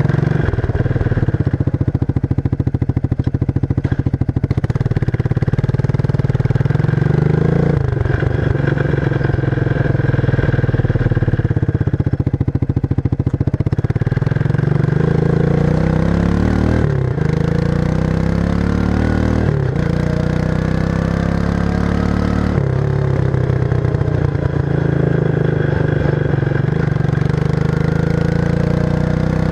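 1994 Suzuki King Quad 300 ATV's single-cylinder four-stroke engine running through its stock muffler with the baffles removed, giving an open, loud exhaust note. The engine speed drops and climbs again several times.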